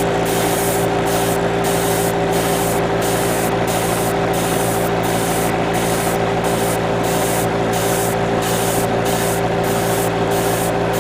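Steady hiss of air and paint spraying over the steady hum of a small compressor, with a regular pulse in the hiss about three times every two seconds; the sound of light paint passes being laid on.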